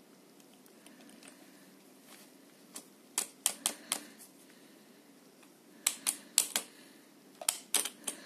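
Plastic clicks from the loupe arms and lenses of a watch-repair magnifier headset being flipped and turned in the hands. The clicks come in three quick clusters of about four each.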